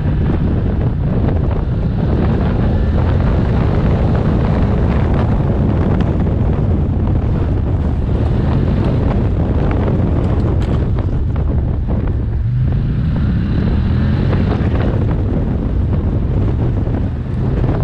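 Heavy wind buffeting the microphone over the steady running of an ATV's engine as it rides along a dirt trail.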